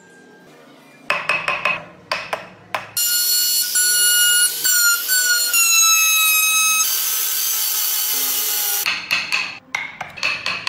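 A handful of quick scraping strokes on wood, then a handheld rotary tool with a burr bit whining at high pitch. Its pitch sags as the burr bites into the wood, followed by about two seconds of grinding. More quick scraping strokes come near the end.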